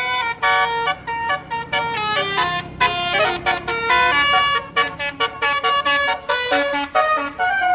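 Indonesian bus's 'basuri' telolet horn playing a fast tune: loud horn notes that step quickly up and down in pitch, with short breaks between phrases.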